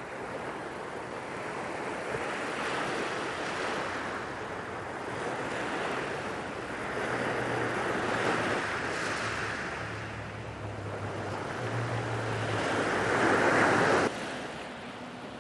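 Small waves breaking and washing up a pebble beach, the surf swelling and easing with each wave, loudest near the end before cutting off suddenly about a second before the end.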